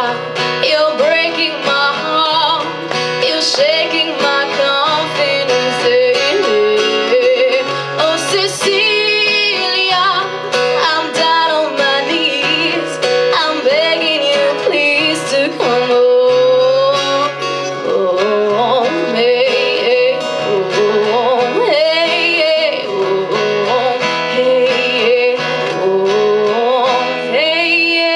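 A woman singing wordless, swooping vocal runs over a strummed guitar accompaniment.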